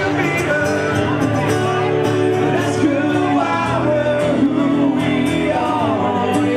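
Live acoustic music: a man singing into a microphone over strummed acoustic guitars.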